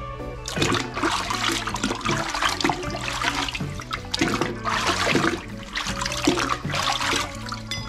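Water sloshing and splashing in irregular surges as sandblasted brake calipers are dunked and swished to rinse out leftover sand, over background music.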